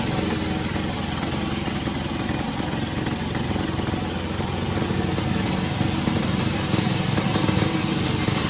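Sawmill machinery running with a steady engine-like drone.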